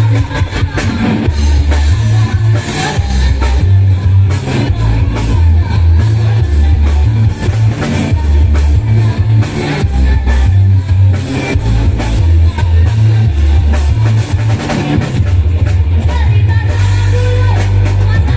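Loud live band music led by an electone keyboard, with a driving bass line, drums and some singing.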